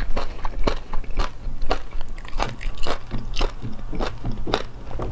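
Crunching bites and chewing of battered sea anemone, close to the microphone, with a sharp crunch about every half second.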